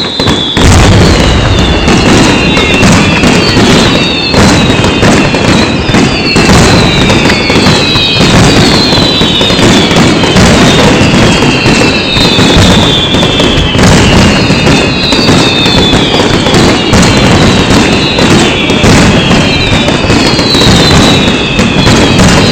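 Fireworks barrage: dense, continuous bangs and crackling, loud throughout. Whistles that fall in pitch repeat about once a second over the top.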